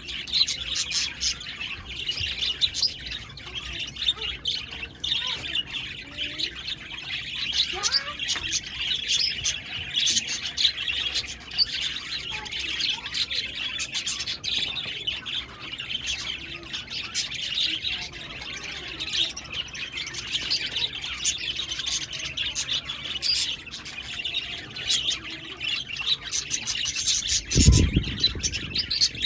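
Budgerigars chirping continuously in a dense stream of short, high calls. A brief low thump comes near the end.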